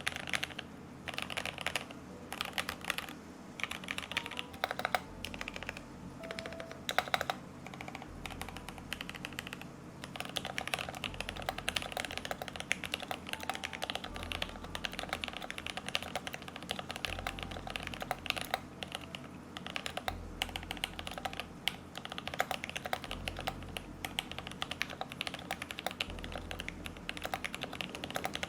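Continuous typing on a TOKYO60 mechanical keyboard with lubed and filmed Noir Rose linear switches and doubleshot keycaps, its case dampened with EVA foam and felt: a fast, steady stream of key clacks.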